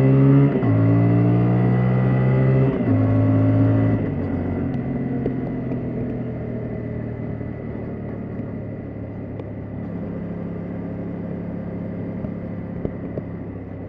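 Yamaha Tracer 700's 689 cc parallel-twin engine accelerating hard, its pitch climbing and dropping back twice as it is shifted up in the first three seconds. About four seconds in the throttle closes and the engine settles to a quieter, steady run.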